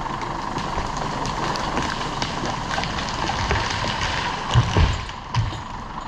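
A vehicle engine running steadily, with clattering clicks throughout and a few louder low thumps about four and a half seconds in.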